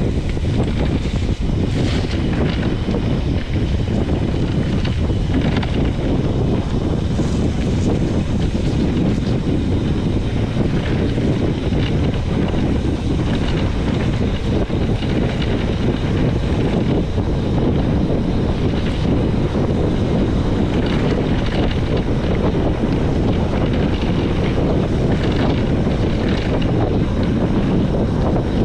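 Wind buffeting the microphone of a handlebar-mounted action camera on a mountain bike going fast, a steady rumble mixed with the tyres rolling over a dirt forest track. A few short rattles break through here and there.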